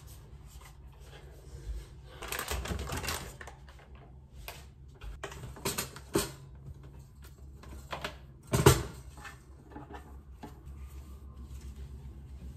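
Kitchen clean-up noises: scattered knocks and clatter of things handled and set down on a hard countertop, with about a second of rustling a couple of seconds in and the sharpest knock about two-thirds through. Near the end, a cloth wiping the counter.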